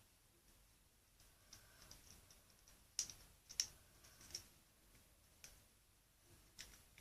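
Faint, scattered small clicks and taps: a small screwdriver working a screw out of a plastic toy sonic screwdriver's battery compartment, with the plastic parts being handled. The clearest clicks come in a cluster about halfway through.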